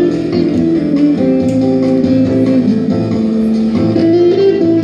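Acoustic guitar being played, a picked melody line moving over lower bass notes.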